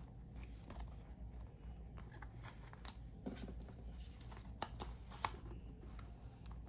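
Plastic binder pocket pages and card sleeves rustling faintly, with scattered soft clicks as photocards are handled and slid into the pockets.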